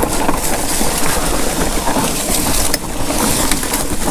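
Mountain bike riding fast down a dirt single track: a steady rush of wind and tyre noise, broken by short rattling clicks from the bike over rough ground.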